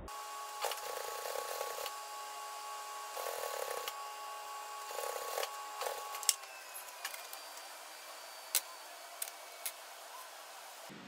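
Industrial single-needle lockstitch sewing machine top-stitching a knit neckband: the motor hums steadily under three or four short runs of stitching. The hum stops about six seconds in, followed by a few sharp clicks.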